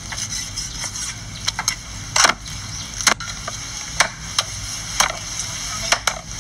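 Cleavers chopping goat meat on wooden chopping blocks: irregular sharp knocks, roughly one or two a second, the loudest a little after two seconds in, over a steady high hiss.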